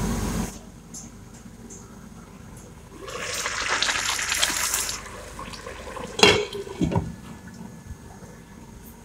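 A pot of rice and vegetables for pulao at a rolling boil. The bubbling and hissing grows louder for about two seconds while the pot is open. About six seconds in comes a sharp clink of the glass lid being set on the pot, with a smaller knock just after, and then the covered pot simmers more quietly.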